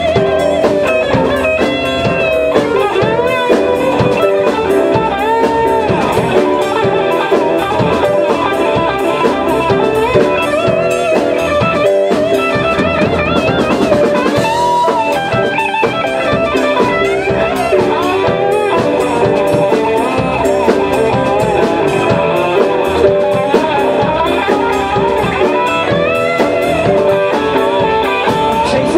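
Rock band playing an instrumental passage: electric guitar, electric bass, drum kit and keyboard together, with no vocals.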